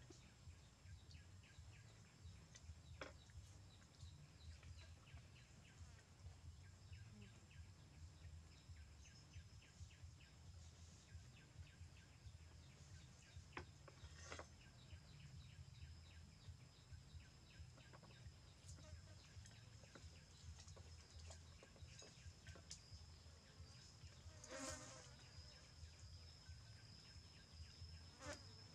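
Near silence: faint outdoor ambience with a thin, steady, high insect drone and scattered soft clicks, and one brief call a few seconds before the end.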